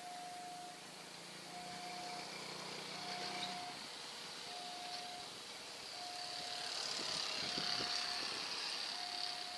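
Railway level-crossing warning alarm sounding a single electronic tone that repeats about every one and a half seconds as a train approaches. A low hum drops out about a third of the way in, and a high, steady hiss swells in the second half.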